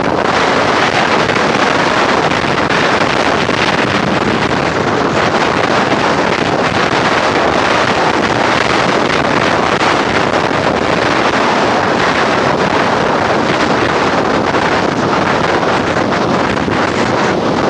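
Strong hurricane wind buffeting the camcorder microphone, a loud, steady rush of noise.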